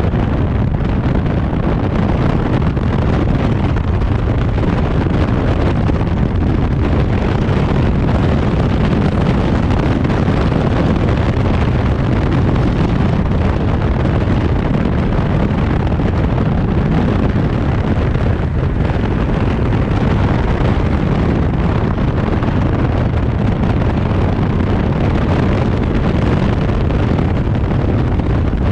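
Steady, loud wind rumble on a camera microphone riding on a moving vehicle, mixed with road noise.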